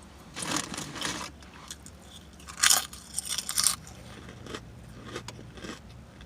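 Close-miked biting and crunchy chewing of food, in two loud spells about half a second and two and a half seconds in, then quieter mouth clicks.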